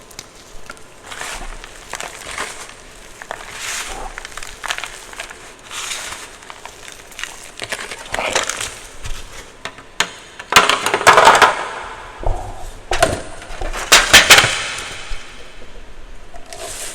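A block of gym chalk being crushed, crumbling with crisp, soft crunches about once a second, and two louder, longer crunches in the second half.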